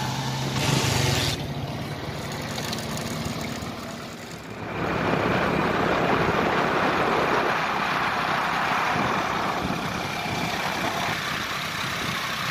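A loaded pickup truck's engine passing close by, then, about five seconds in, a steady rush of wind and road noise over the microphone of a moving motorcycle, with the motorcycle's engine running underneath.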